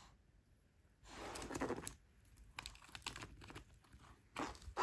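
Faint rustling and scraping on tatami matting as a cat bats at a wand toy dragged across the floor, with a few light taps in the second half.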